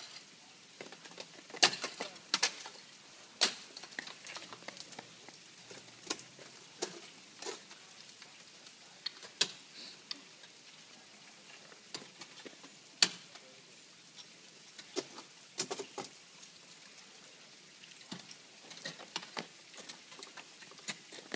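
Ice climbing tools and crampons striking waterfall ice: irregular sharp strikes a second or several apart, the loudest about two seconds in, about three and a half seconds in and about thirteen seconds in, with many fainter clicks between.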